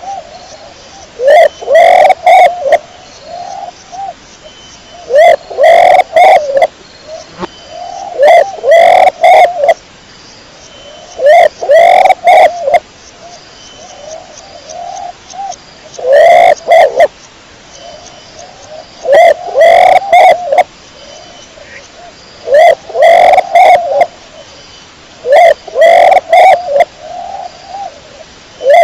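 Domestic pigeon cooing: loud, repeated bouts of rolling coos, a new bout every three to four seconds.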